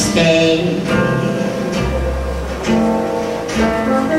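Instrumental music led by guitar over a bass line, with no singing in this stretch.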